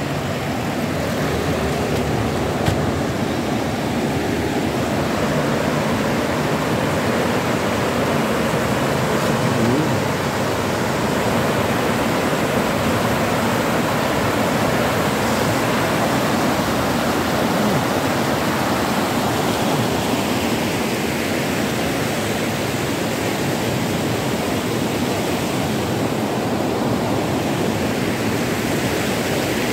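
Rushing mountain river tumbling over rocky rapids: a steady, even roar of water with no breaks.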